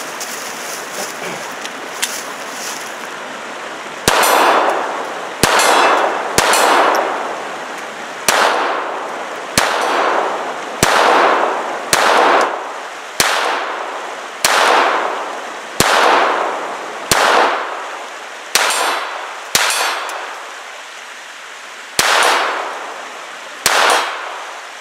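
Taurus TX22 .22 LR pistol fired without a suppressor, using standard non-subsonic ammunition: about fifteen single sharp shots at a steady pace of roughly one a second, each trailing a long echo, with a longer pause before the last two.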